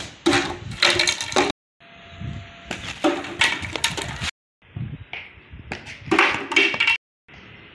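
Run-up footsteps and the delivery stride on a concrete floor, with a hard cricket ball bouncing and knocking against plastic stumps, as clusters of sharp knocks and scuffs. It comes in three short takes, each cut off abruptly into silence.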